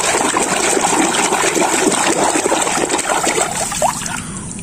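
Water sloshing and splashing as a hand churns and scrubs in a tub of foamy water. It is a steady, busy agitation that eases off near the end.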